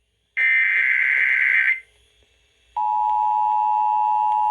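Emergency Alert System broadcast: a buzzy data burst of the SAME digital header lasting about a second and a half, then after a second's silence the steady two-tone EAS attention signal (853 and 960 Hz together) begins about three seconds in.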